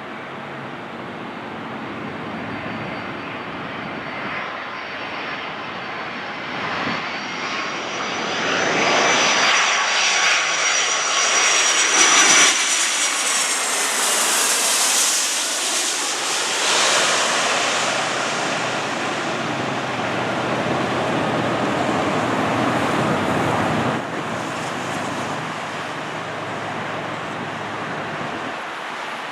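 Boeing 757-200 jet airliner on landing approach passing close by. A high whine and engine noise build to a peak about twelve seconds in, the whine dropping in pitch as it goes past. A broad rumble follows and fades, stepping down in level about 24 seconds in.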